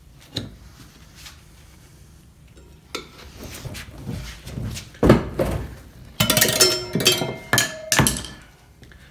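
Steel tire irons knocking and clinking against each other and the rim while the tire bead is levered on over a foam mousse insert. A hard knock comes about five seconds in, then a quick run of ringing metallic clinks.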